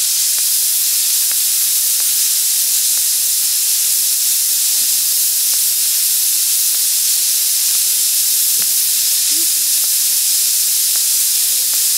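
Steady, loud hiss of steam escaping from a coal-fired 5-inch gauge live steam locomotive.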